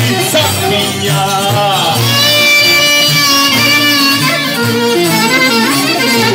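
Live Greek folk dance music: a clarinet playing an ornamented instrumental melody over the band's guitar accompaniment, between sung verses.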